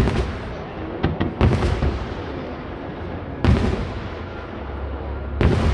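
Aerial fireworks shells bursting in a series of loud booms a second or two apart, each with a rolling echo, with smaller cracks between them.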